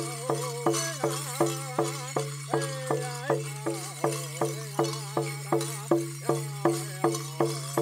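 Powwow drum struck in a steady, even beat of about three strokes a second. Voices sing a chicken dance song over it, their pitch sliding up and down.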